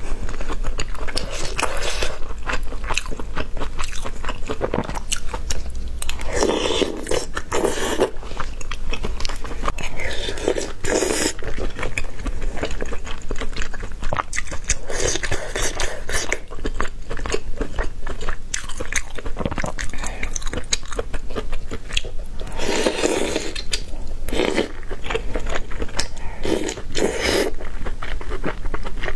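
A person chewing and biting food close to the microphone, with many small wet mouth clicks and several louder stretches of chewing lasting about a second each.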